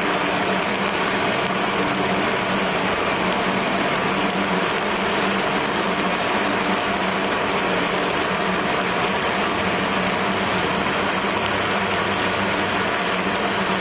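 Stick (shielded metal arc) welding arc crackling and hissing steadily as a bead is run, with a faint steady hum underneath.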